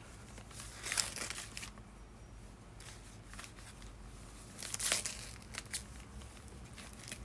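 Paper wrapping being crumpled and torn open by hand, in a few short rustling bursts that are loudest about a second in and again just before five seconds.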